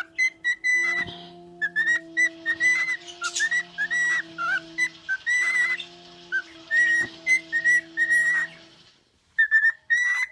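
Pet bird whistling a long run of short notes, each flicking upward, with a brief pause just before the end. Under the whistles is a steady low chord of television film music.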